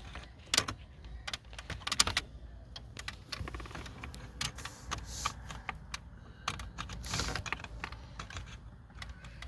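Irregular plastic clicks and rattles of car wiring-harness connectors being handled and plugged back in, with a sharper knock about two seconds in.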